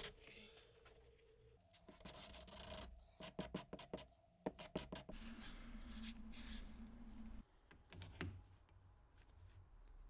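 Faint scratching and rubbing of a forged-carbon shift knob sanded by hand on a sanding block, with a quick run of light clicks and taps in the middle.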